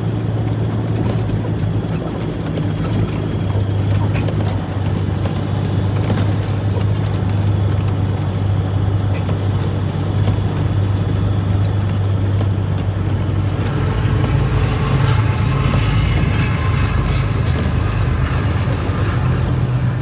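Semi truck's diesel engine running steadily as the truck rolls slowly over a gravel yard road, heard from inside the cab. About two-thirds of the way through the engine note shifts and more rattle and road noise comes in.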